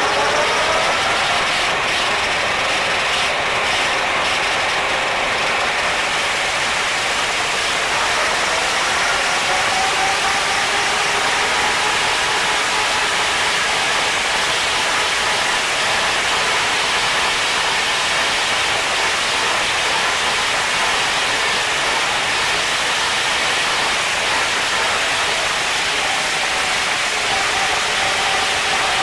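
Tractor engine running steadily under load, driving a Wirax 1.65 m rotary drum mower through the PTO as it cuts grass. This is the mower's test cut after a repair of its belts and drum bearings.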